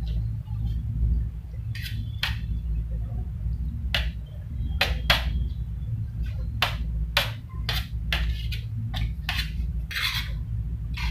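Steel spoon scraping and clicking against a stainless steel plate while scooping up fried rice, about a dozen short strokes at uneven intervals, over a steady low hum.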